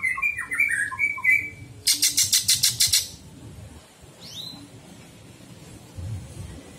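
Caged green leafbird (cucak ijo) singing: quick chirping phrases, then a loud harsh rattle of about eight rapid notes, and later a single short falling whistle.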